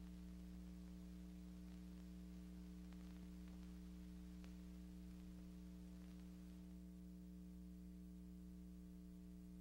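Near silence: a steady low electrical hum under faint hiss and a few faint ticks, the hiss dropping away about two-thirds of the way through.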